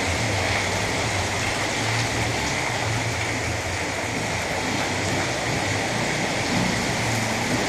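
Heavy rain pouring down, a steady loud hiss with a low rumble beneath it.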